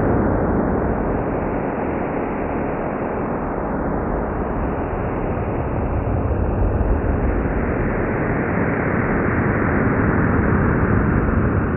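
A recording presented as the sound of a black hole: a continuous deep, rumbling noise without clear tones. It eases off slightly a couple of seconds in and swells again toward the end.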